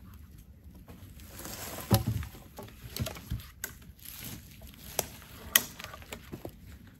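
Footsteps of a person walking over a dry forest floor of needles, grass and fallen branches, with rustling and a few sharp snaps, the loudest about two seconds in and again near five and a half seconds.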